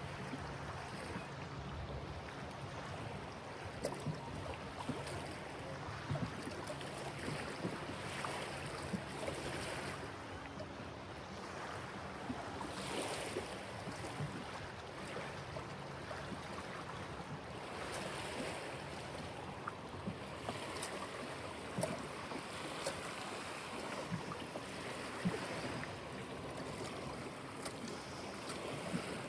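River water moving and lapping, with wind, as a steady rush broken by frequent small splashes.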